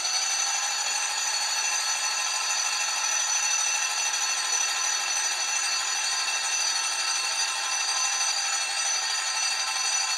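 Starter motor cranking a Porsche 912 flat-four engine with a steady whine, pumping fresh oil through it to prime the oil system and build oil pressure.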